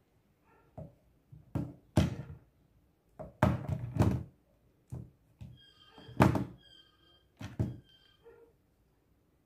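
A series of thuds and knocks, about eight over a few seconds, with phones in hard cases being handled and set down on a wooden desk. Faint steady high tones sound between the knocks in the second half.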